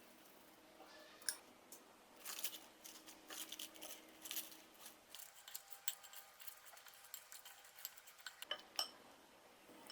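Light clicks, taps and crisp rustles of salad ingredients and kitchen utensils being handled, coming in short irregular clusters.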